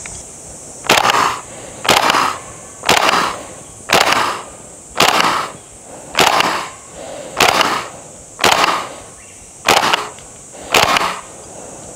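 KSC TAR-21 gas blowback airsoft rifle fired semi-automatically: ten single sharp shots about a second apart.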